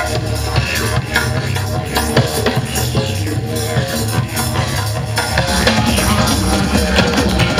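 Loud music with a steady drum beat and heavy bass.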